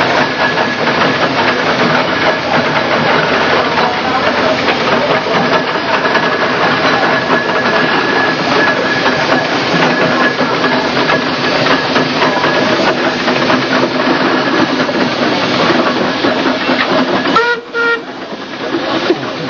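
Steam traction engine working: a loud, steady hiss of steam with mechanical clatter. It drops away briefly near the end.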